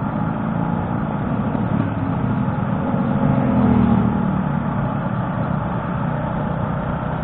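Motorcycle engine running under way, with steady road and wind noise. It swells a little about three to four seconds in.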